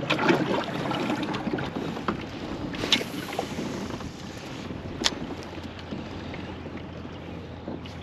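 Lake water lapping against a fishing kayak's hull, with wind on the microphone and a couple of sharp clicks about three and five seconds in.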